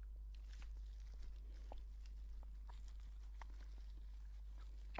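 Faint chewing, with soft wet mouth clicks scattered every half second or so, over a steady low hum.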